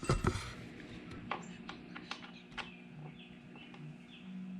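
A thump, then scattered light clicks and taps of hand work on a screw being turned, with a few brief low hums.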